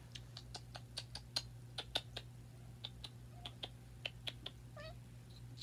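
Faint, irregular light clicks and taps, about twenty in all, like handling or tapping close to the microphone, over a steady low hum. A brief faint voice-like sound comes near the end.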